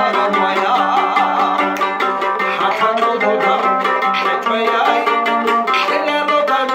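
A man singing a folk song to his own mandolin, which he picks in quick, even strokes.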